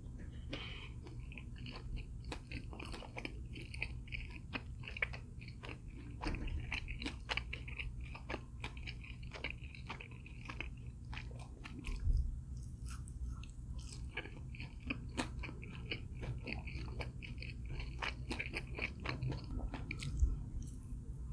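A person chewing close to the microphone, with frequent crisp crunches as crispy fried food breaks between the teeth.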